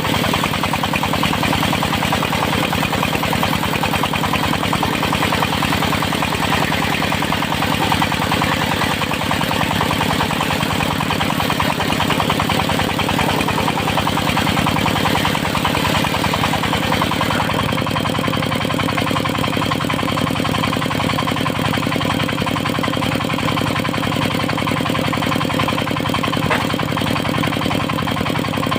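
Engine driving a circular sawmill, running steadily with a fast, even pulse; the sound gets a little duller about two-thirds of the way through.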